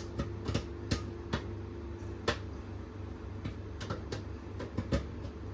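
Popcorn kernels popping in a microwave popcorn bag inside a running microwave oven: sharp single pops at irregular intervals, one or two a second, over the oven's steady low hum.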